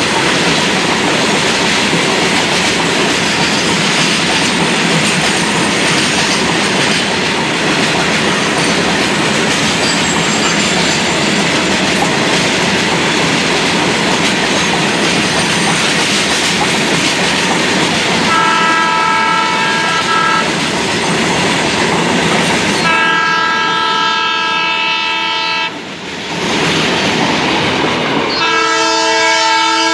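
A long rake of loaded BCNHL covered freight wagons passes at speed, a steady rushing rumble with wheels clattering over the rail joints. In the second half a train horn blows three times in several notes at once; the last blast comes near the end.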